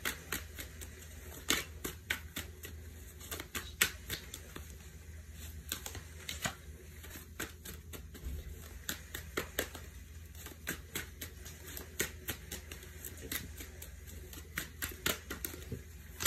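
Tarot cards being shuffled and dealt onto a cloth: irregular, quick clicks and snaps of card stock, over a faint steady low hum.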